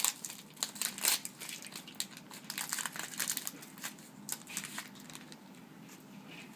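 Crinkly rustling and soft clicks of football trading cards and their packaging being handled and flipped, busiest in the first few seconds and dying away near the end.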